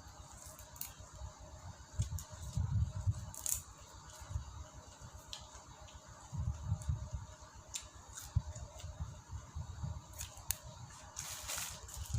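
A person chewing food close to the microphone: irregular low thuds from the jaw, with scattered sharp mouth clicks and crunches.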